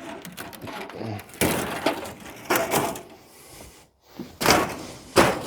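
Rusted sheet-metal patches on an old pickup being broken and torn away: several loud cracks and scrapes a second or so apart.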